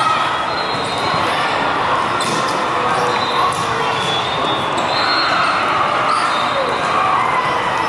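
Volleyballs being struck and bouncing, with sneaker squeaks and players shouting from many courts, all blending into the echoing din of a large tournament hall. A few sharp ball contacts stand out in the middle.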